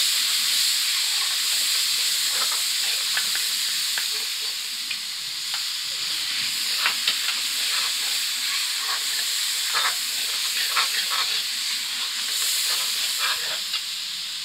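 Tomato-and-spice masala sizzling steadily in a metal karahi as it is fried down with a splash of water. A metal spoon stirs it, with scattered scrapes and clicks against the pan.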